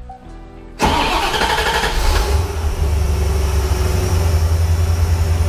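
1991 Chevrolet Corvette's L98 5.7-litre V8 starting: it fires suddenly just under a second in, flares briefly, then settles into a steady idle.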